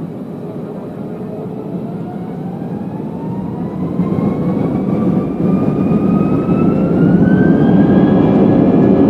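Airbus A320's IAE V2500 jet engines spooling up for take-off: a whine climbs steadily in pitch over a low rumble, and the sound grows louder.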